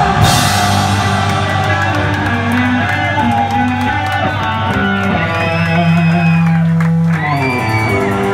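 Live rock band playing: electric guitars, bass and drums, with a brief break about seven seconds in before the band comes back in.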